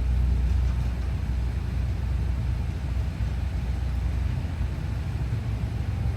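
Steady low rumble of a vehicle driving on the road.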